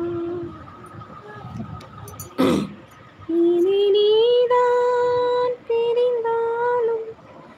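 Long held vocal notes: a few steady tones of one to two seconds each, rising a step in pitch after the first. A single thump comes about two and a half seconds in.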